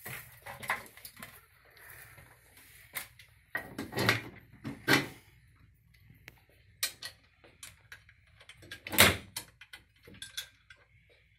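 Irregular clanks and knocks of metal parts being handled: a tubular extended stop-arm frame being lifted and set in place over the stop-sign assembly. The loudest knocks come about four, five and nine seconds in.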